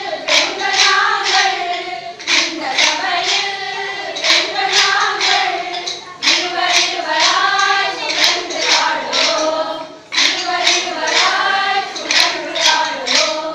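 A group of voices singing together, with hand claps keeping a steady beat.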